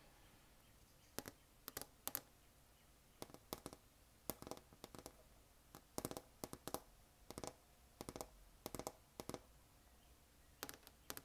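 Long acrylic fingernails tapping on the edge of a vinyl LP record: quick, irregular clusters of sharp clicks, starting a little over a second in.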